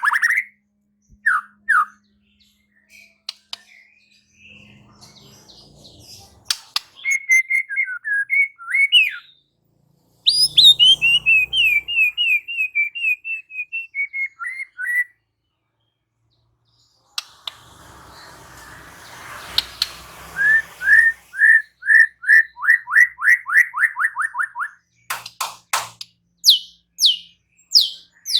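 White-rumped shama singing: varied loud whistled phrases and fast runs of repeated sliding notes, broken by short pauses.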